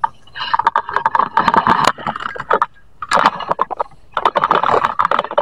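Leaves, stems and twigs rustling and crackling close to the microphone as someone pushes through thick brush and tall grass, with two short pauses in the middle.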